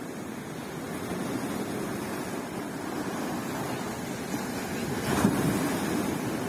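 Sea waves washing onto a beach: a steady rush of surf, with one wave breaking louder about five seconds in.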